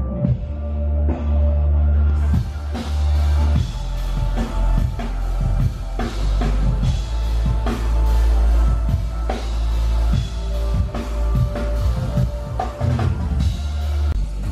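Loud music with a drum kit and heavy bass, drum hits running throughout; the treble comes in fuller about two seconds in.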